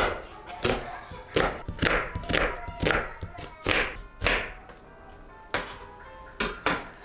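Kitchen knife chopping an onion on a wooden cutting board: a run of sharp knocks, about two a second, a short pause, then a few more chops near the end. Soft background music underneath.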